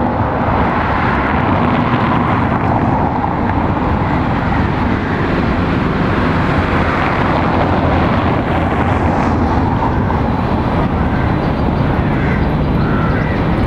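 Steady, loud outdoor rumble with no distinct events, with a few short chirps near the end.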